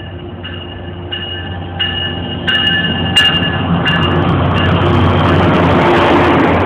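BL20 diesel locomotive arriving and passing close by, its bell ringing about one and a half strikes a second over the steady hum of its engine. As the bell fades about four seconds in, the louder, even rolling noise of the passenger coaches going past takes over.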